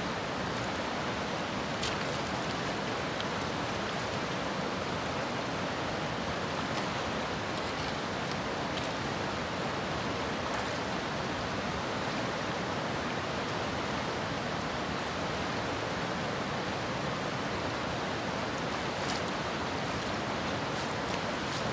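River current running over a shallow cobble riffle, a steady even rush of water, with a few faint ticks over it.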